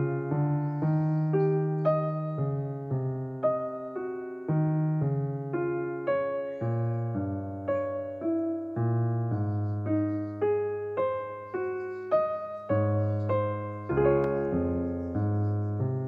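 Background music: a piano piece, single notes and chords struck one after another and fading away.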